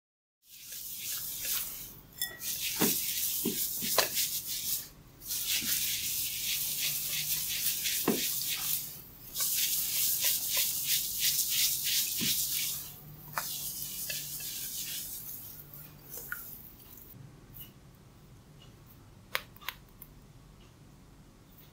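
Hair cracking: hair rubbed and twisted between fingers close to the microphone, making a dense, fast crackle. It comes in bursts of a few seconds with short breaks between them, then fades to a few scattered clicks over the last few seconds.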